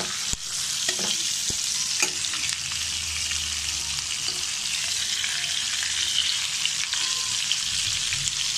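Pieces of hilsa fish sizzling steadily in hot oil in a flat pan (tawa), with a metal spatula clicking against the pan now and then as the pieces are turned over after their first light frying.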